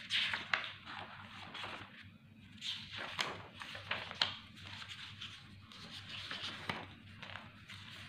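Quiet room tone with a few faint, short clicks and soft rustles scattered through it.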